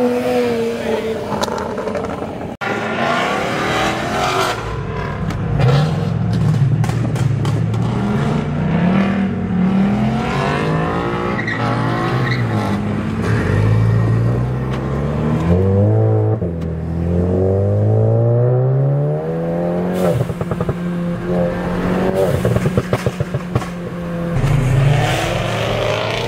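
Sports car engines accelerating hard, revving up through the gears: the engine note climbs in pitch again and again and drops back at each shift. Near the end a steadier engine drone carries a brief rapid stutter.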